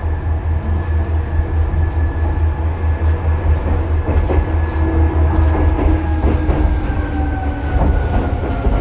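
Running sound of a Seibu 2000 series field-chopper-controlled electric train, heard from inside the motor car: a steady low rumble with a motor whine that slowly falls in pitch as the train slows, and a few sharp clacks of the wheels over rail joints or points, about four and eight seconds in.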